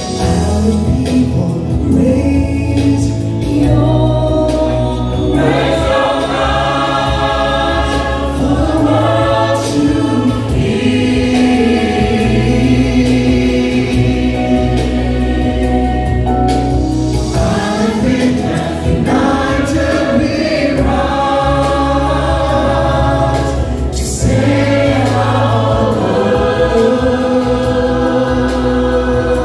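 Mixed choir singing a lament in phrases, amplified through microphones, with a steady deep low end under the voices.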